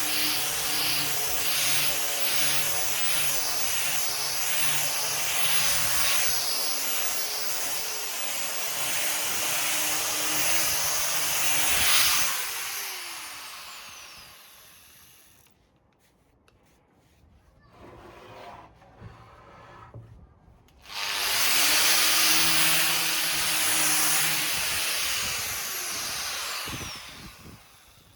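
Electric orbital sander running on a wooden table top: a motor hum under the steady rasp of sandpaper on wood. About twelve seconds in it is switched off and winds down with a falling whine. After a few quiet seconds it starts again abruptly and runs until it dies away near the end.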